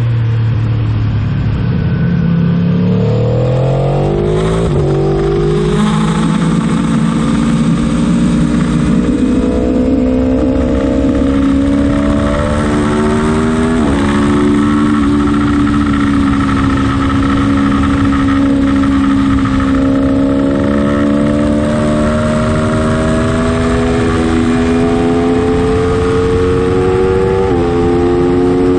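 Aprilia Tuono sport motorcycle engine heard on board at track speed. Its note drops briefly, then climbs and keeps rising slowly under hard acceleration, with a brief break in the note twice that fits quick gear changes. Steady wind rush runs underneath.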